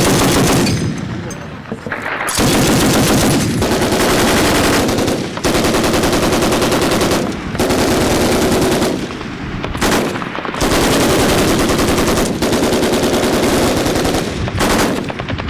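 Heavy automatic gunfire: machine-gun fire in long sustained bursts of about two to three seconds each, separated by brief pauses.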